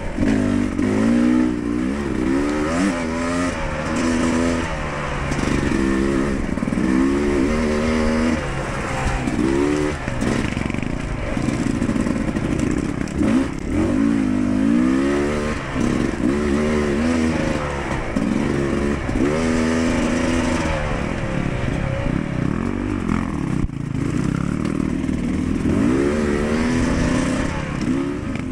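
Dirt bike engine being ridden hard on a trail, its pitch rising and falling again and again as the throttle is opened and closed.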